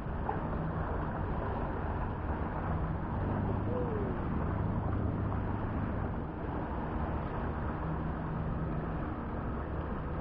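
Steady drone of a motorboat engine running offshore, under wind and surf noise. A short bird call rises and falls about four seconds in.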